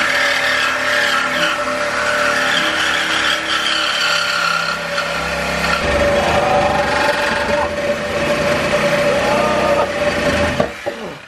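Compact cordless Milwaukee reciprocating saw cutting through a Corvette's steel exhaust pipe: the motor runs with a steady whine while the blade rasps and screeches in the metal, and it stops shortly before the end.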